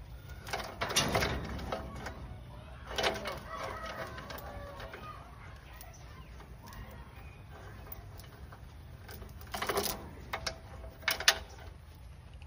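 A few sharp metal clanks and knocks as a trailer tongue is worked onto a tractor's hitch, the loudest about 1 s, 3 s, 10 s and 11 s in. Chickens cluck over a low steady rumble.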